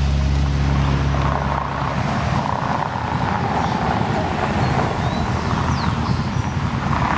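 A classic Fiat 124 Spider's four-cylinder engine runs steadily as it drives away, dying out a little under two seconds in. A modern SUV then passes close, heard mainly as tyre and road noise that swells and fades.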